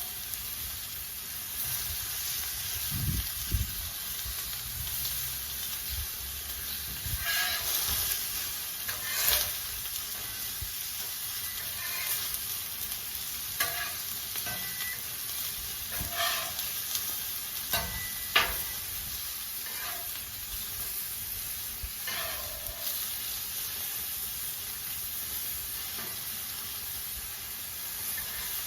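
Food sizzling steadily in oil on a Blackstone flat-top griddle, with a few short knocks scattered through, the sharpest a little after the middle.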